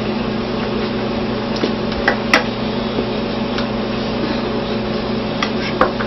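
Steady low hum in the kitchen. A few sharp clicks of a knife against a cutting board as fat is trimmed off a roast beef, two close together about two seconds in and one near the end.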